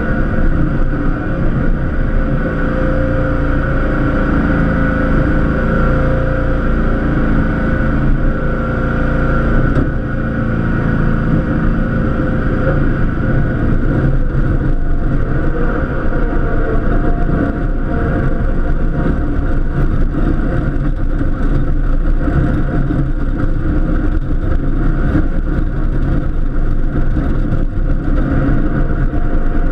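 Cub Cadet LTX1050 lawn tractor engine running steadily under load while plowing snow.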